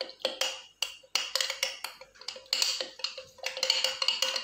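Metal spoon stirring custard powder into milk in a glass jar, clinking quickly against the glass, several strikes a second, with a short ringing after them.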